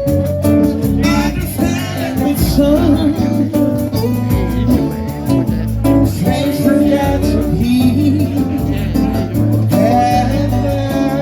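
Live band playing a song with a singer and guitar over a steady drum beat.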